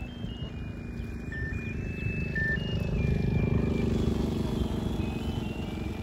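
An engine running with a low pulsing rumble that grows louder toward the middle and then fades, as if passing by, with a thin melody of steady high tones stepping up and down over it.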